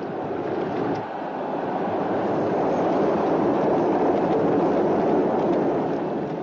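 Chariot-race rumble of galloping horse teams and rolling chariot wheels: a continuous rushing noise that swells through the middle and fades out near the end.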